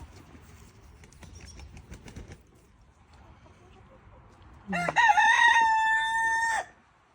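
A rooster crows once, loud and held on one steady pitch for about two seconds, then stops abruptly. Before it come a couple of seconds of faint rustling and clicks.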